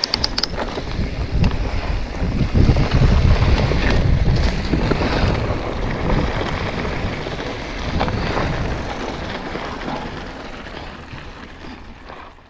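Wind rushing over the mountain bike's camera microphone together with knobby tyres rumbling over a dirt trail, with a quick run of clicks right at the start. The rumble is strongest in the first few seconds and fades away toward the end.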